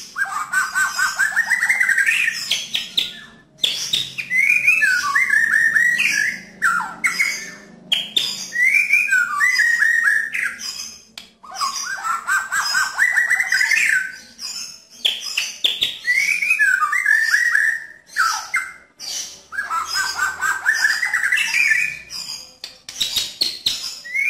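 White-rumped shama (murai batu) singing in loud, rapid bursts of song. Fast runs of repeated notes, often climbing in pitch, mix harsh and clear tones, with short pauses between phrases.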